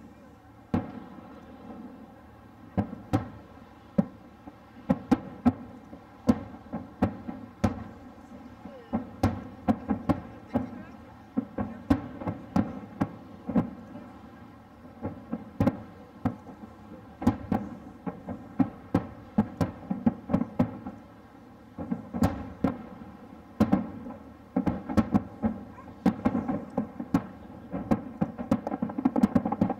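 Aerial fireworks shells bursting, a continuous barrage of sharp bangs in quick succession over a low rolling rumble, with a couple of brief lulls.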